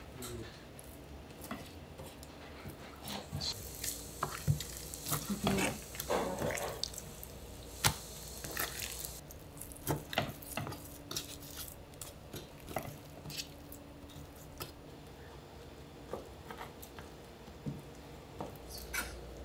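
Raw chicken being threaded onto yakitori skewers by hand: irregular small clicks and taps.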